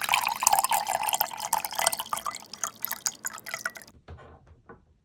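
Coffee from an illy espresso machine running onto ice in a glass: a quick patter of drips that thins to scattered single drops and stops about four seconds in.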